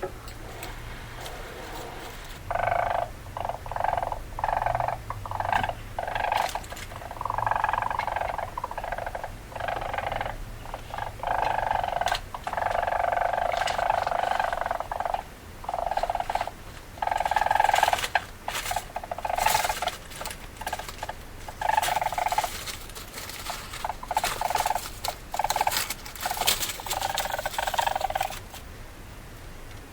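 Weasel calls: buzzy chattering in irregular bursts of a second or two, with sharp clicks and short pauses between them.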